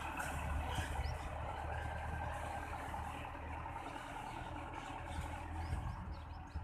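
Belarus 510 tractor's diesel engine running steadily as it pulls a laser land leveler away across the field. The sound slowly fades as the tractor moves off.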